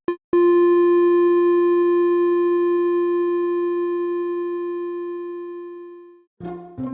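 Cartoon sound effect: a final short electronic blip, then one long held synthesizer note that slowly fades away and stops about six seconds in. After a brief gap, a new brass-like cartoon jingle begins near the end.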